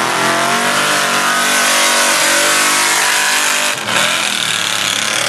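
Mud-racing pickup truck's engine at full throttle as the truck races down a mud pit, its revs climbing steadily. The sound dips briefly about four seconds in.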